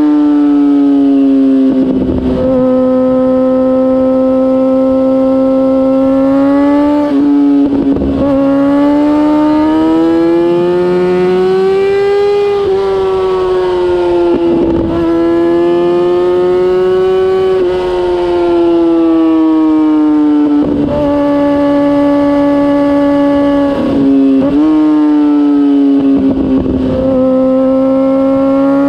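A 2004 Kawasaki ZX-6R's inline-four engine running at high revs through a MIVV GP aftermarket exhaust while riding. It gives a steady, high-pitched note that rises and falls gently, with brief breaks every few seconds.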